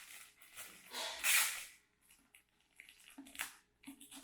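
Rustling of packaging being handled while a scarf is unwrapped, in a few short bursts, the loudest about a second in.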